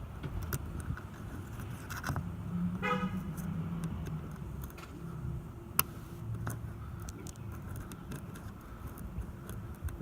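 Lock pick working the key cylinder of an Isuzu Rodeo's lock, with small irregular metal clicks and jingles as the wafers are set, and one sharper click near six seconds in. A dog gives a short whine about three seconds in.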